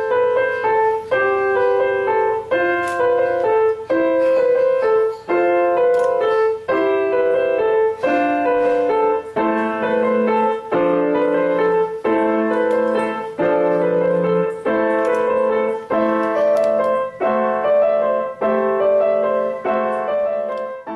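Grand piano playing Christmas music at a slow, even pace, a new chord struck roughly every second and a half; the playing stops near the end and the last chord rings off.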